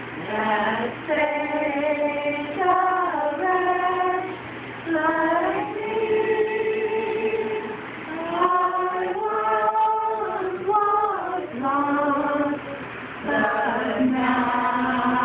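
A small group of women and children singing a slow song together without accompaniment, holding each note for about a second, with short breaks between phrases.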